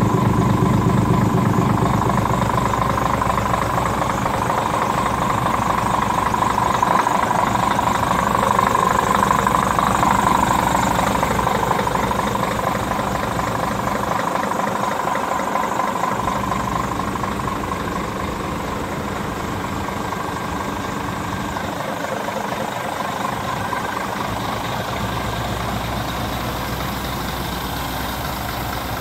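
Scania R410 truck's 13-litre straight-six diesel idling steadily, a little fainter in the second half.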